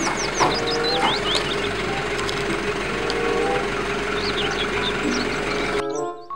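A vehicle engine running steadily under a dense hiss, with a few short high chirps in the first second and a half and again around four seconds in. It cuts off sharply about half a second before the end.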